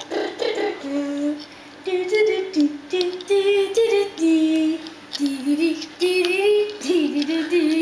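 A child singing a tune without clear words, holding notes that step up and down in short phrases with brief pauses.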